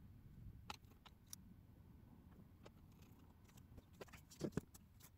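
Near silence with a few faint clicks and taps from a camera body being handled, then a pair of louder knocks about four and a half seconds in.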